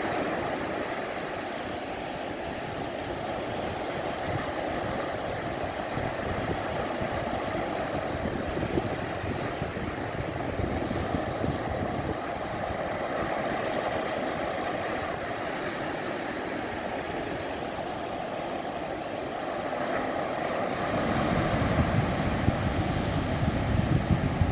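Steady wash of surf breaking on a beach, choppy wind-driven waves, with wind buffeting the microphone, louder for the last few seconds.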